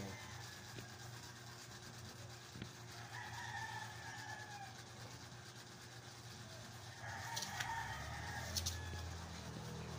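A rooster crowing twice, first about three seconds in and again about seven seconds in, over a steady low hum.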